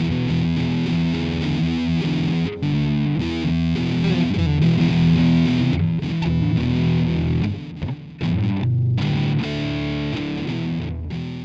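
Background music: a rock track led by distorted electric guitar.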